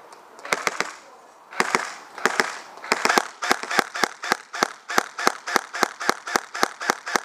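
Airsoft gun firing single shots at close range: a few scattered shots at first, then a steady string of shots at about three a second.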